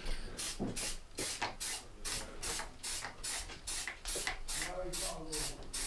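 Aerosol spray paint can giving short rapid bursts of hiss, about three a second, as gloss black paint goes onto model railway cars.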